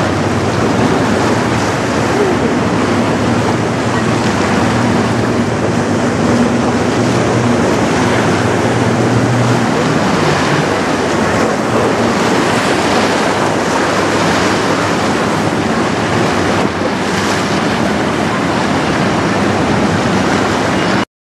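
Wind buffeting the microphone over churning water from the stern wash of a passing 1967 Great Lakes bulk freighter. A low steady engine drone from the ship fades about ten seconds in. The sound cuts off abruptly near the end.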